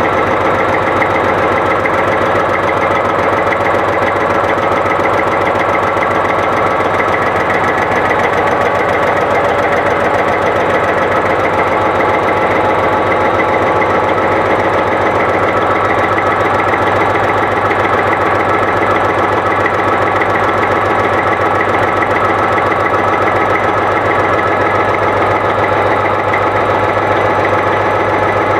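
EMD 645 V12 turbocharged two-stroke diesel engine running steadily, heard up close over its uncovered rocker arms and valve gear, which clatter busily under the engine's sound.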